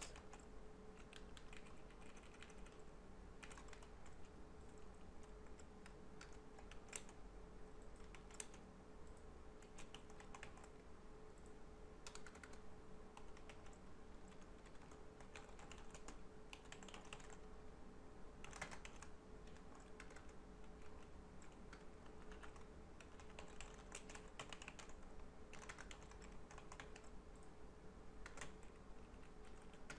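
Typing on a computer keyboard: faint key clicks in irregular runs and pauses, over a low steady hum.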